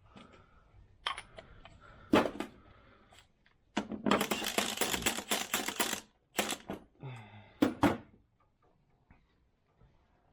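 Hand ratchet clicking in a rapid run for about two seconds, with scattered metal clanks and knocks of tools before and after.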